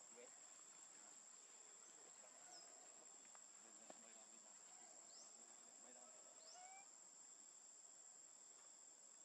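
Near silence: faint forest ambience with a steady high-pitched insect drone, like crickets, and a few faint short high chirps.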